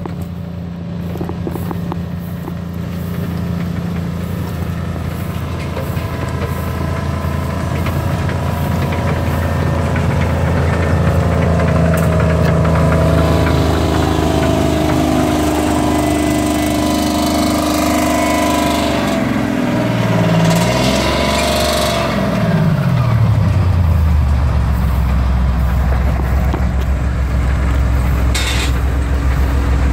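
The engine and tracks of a German Panzer III reenactment tank approaching, growing louder as it closes in, with track noise as it comes alongside. Its engine then drops in pitch as it slows and settles into a low, steady idle.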